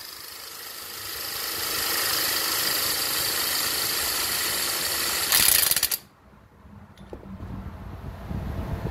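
Handheld electric power gun spinning a rebuilt car alternator on the bench for a charging test: the motor whine builds up over the first two seconds and holds steady, turns briefly louder and harsher a little over five seconds in, then cuts off suddenly about six seconds in.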